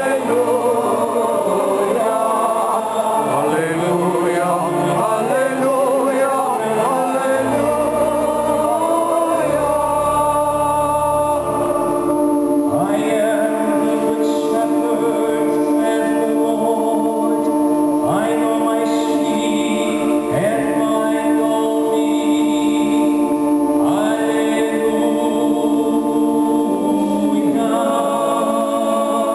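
Church choir singing, moving lines at first and then long held chords from about halfway through.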